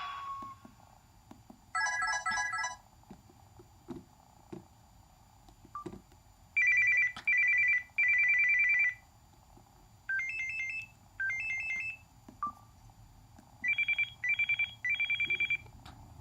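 A run of short electronic alert tones from a Samsung Convoy flip phone's speaker. A quick warbling beep comes about two seconds in, then three pulsing beeps around seven to nine seconds, two rising two-note chirps around ten to twelve seconds, and three short beeps near the end. Faint clicks sit in the gaps between them.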